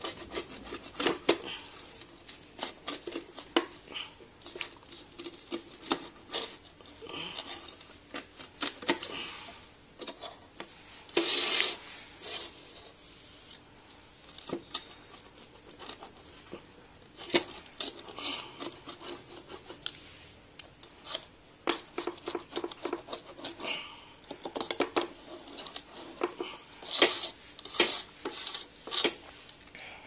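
Pizza cutter wheel rolling through a baked pizza, its metal wheel scraping and clicking against a stainless steel plate in repeated strokes, with a longer scrape about 11 seconds in.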